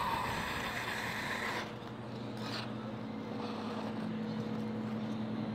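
Crowd applause dying away over the first couple of seconds, leaving a steady low hum.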